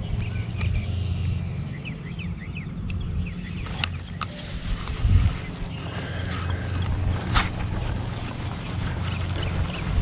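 An insect singing one steady, high-pitched note that stops shortly before the end, over a low rumble, with a sharp click about seven and a half seconds in.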